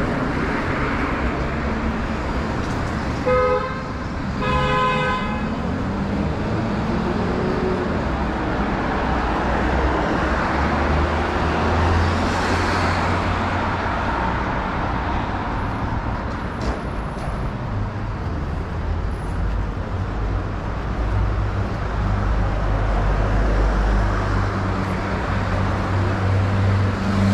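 City street traffic with two short car-horn toots a few seconds in, followed by the steady noise of passing vehicles and a deep engine rumble that comes in about a third of the way through.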